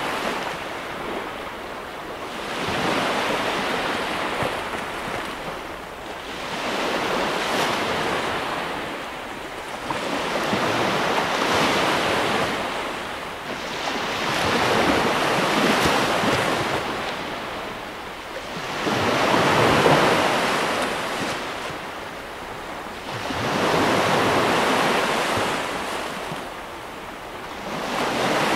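Baltic Sea surf breaking and washing up a sandy beach, each wave swelling and fading in turn about every four seconds.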